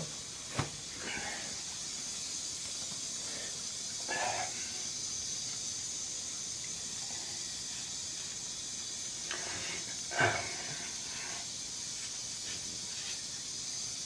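Steady hiss from the camera's microphone. A few brief soft rustles or bumps from handling cut through it, at about half a second, about four seconds, and a slightly louder one about ten seconds in.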